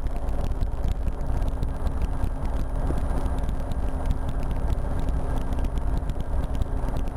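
RotorWay experimental helicopter in flight: steady engine and rotor noise with a low hum, heard from inside the cockpit.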